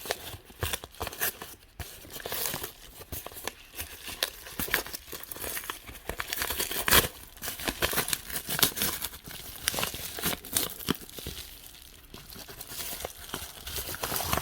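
Crinkly wrapping around Pokémon cards being torn open and handled, with irregular crackling and tearing throughout.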